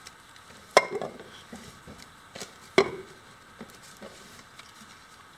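Groceries being unpacked from a cloth sack: two sharp knocks, about two seconds apart, as containers of tomato sauce are set down, with a few softer clicks and rustling between them.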